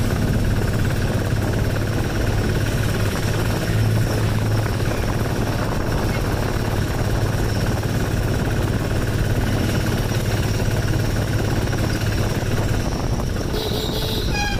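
Steady road and wind noise with a low hum, heard from inside an open rickshaw moving along a town street. A short high beep comes near the end.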